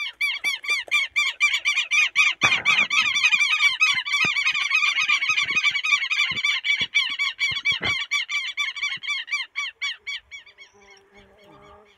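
A flock of birds calling in flight overhead: a rapid, continuous run of harsh, repeated calls, several a second, fading away near the end, with a few faint knocks in between.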